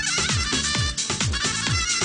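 Music with a fast, steady drum beat, about two beats a second, under a full band of instruments.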